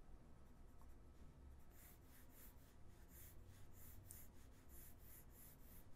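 Faint scratching of sketching strokes on a drawing surface, short strokes coming two or three a second from about a second and a half in.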